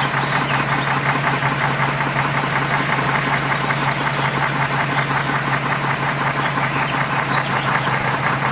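A machine or engine running steadily: a low hum under a fast, even clatter. A brief high trill about three seconds in.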